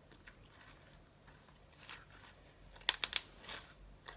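Clear, stretchy slime being stretched and squeezed by hand, giving a few small crackling pops, the loudest cluster about three seconds in.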